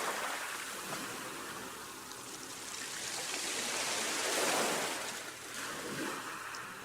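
Sea waves washing onto a shore, one wash ebbing away and another building up about four seconds in.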